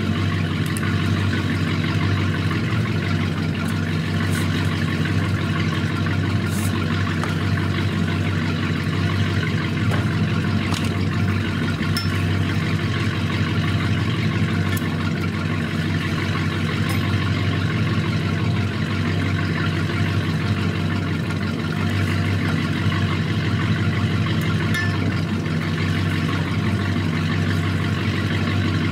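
An engine idling steadily, an even hum that does not change speed, with a few faint ticks over it.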